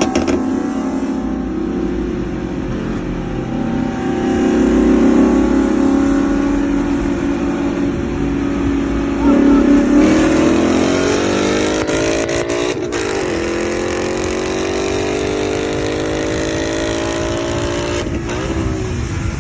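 Ford Mustang GT's V8 cruising, then kicking down at about nine seconds into a wide-open-throttle pull from a 45 mph roll. Its pitch climbs steadily for several seconds before it lets off near the end.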